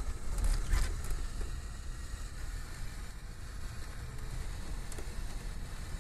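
Vehicle driving along a wet road, heard from inside the cabin: a steady low engine and road rumble with a haze of tyre noise.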